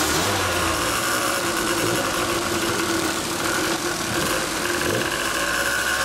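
Kawasaki KDX125's two-stroke single-cylinder engine, fitted with an RSV expansion-chamber exhaust, running steadily at low revs as the bike rolls slowly off.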